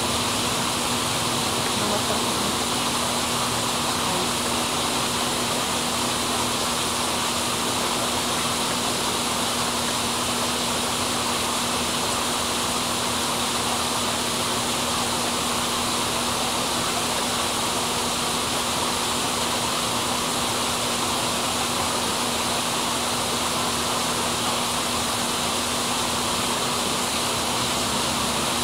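Steady, even hiss with a low, constant hum underneath, unchanging throughout, with no distinct events.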